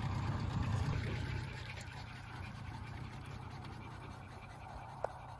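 Small outboard motor on an aluminium tinny idling with a low steady hum that fades after about a second and a half, then one short click near the end.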